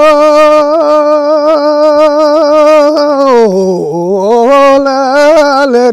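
Unaccompanied solo singing: one voice holds long, high notes with a wavering, ornamented line, dips lower about three and a half seconds in, then climbs back up.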